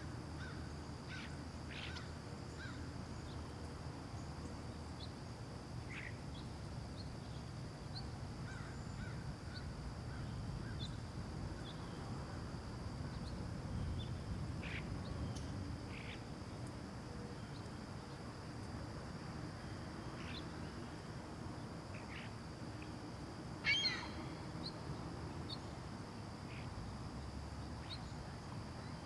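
Residential outdoor ambience: a steady low background rumble and a thin steady high-pitched tone, with birds calling in scattered short chirps. About 24 s in there is one louder, quick run of bird calls.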